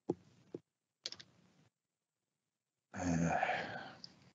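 A few soft clicks of trading cards being handled in the first second and a half. About three seconds in comes a breathy sigh lasting about a second.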